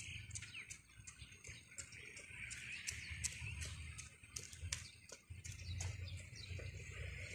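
Small birds chirping in the palms and shrubs: many short, high chirps, several a second, over a low steady rumble.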